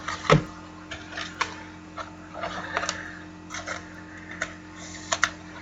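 Scattered light clicks and taps, a couple of them in quick pairs, over a steady low hum.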